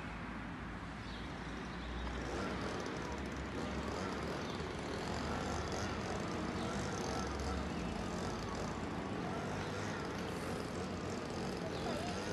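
Steady outdoor background noise of road traffic, with a low rumble underneath.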